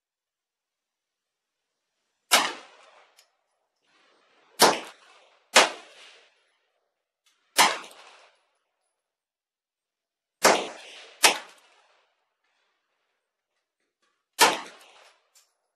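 Chiappa PAK-9 blowback-operated 9mm AK-pattern pistol fired semi-automatically, seven shots at an uneven pace, some about a second apart and others several seconds apart. Each report is sharp and fades quickly.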